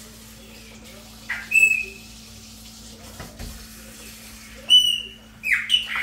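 Chopi blackbird (pássaro-preto) singing: sharp downward-sweeping calls and clear whistled notes, one phrase about a second in and another near the end, over a steady low hum.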